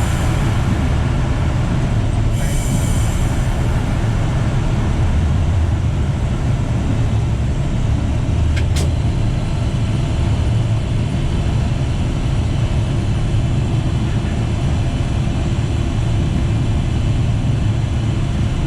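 Diesel train running along the line, heard from the front of the locomotive: a steady low rumble of engine and wheels on rails, with one brief click about nine seconds in.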